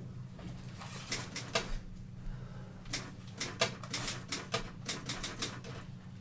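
Room tone: a steady low hum with scattered, irregular soft clicks, several a second, like keys being tapped.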